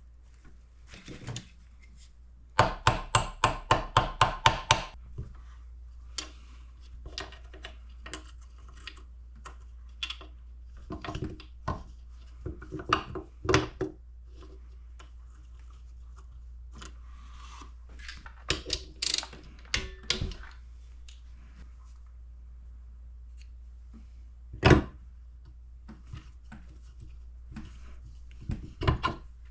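Workshop tool handling on an engine being assembled: a quick run of about ten sharp clicks a few seconds in, then scattered clinks and knocks of metal tools and parts set down and picked up, with one louder knock near the end.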